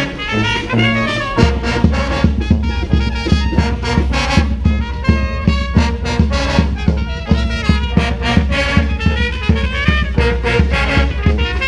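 Street brass band playing a New Orleans-style brass band tune: trumpets and trombones over a steady percussion beat, with a heavy low bass line coming in about a second and a half in.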